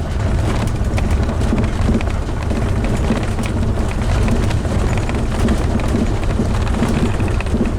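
Class A motorhome on the move, heard from its cab: a steady, loud low rumble with a dense crackle of small ticks and rattles.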